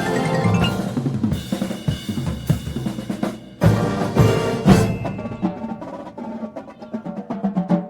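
Drum and bugle corps playing on the field: marching snare and bass drums with brass and mallet percussion, with a loud full-ensemble hit about three and a half seconds in.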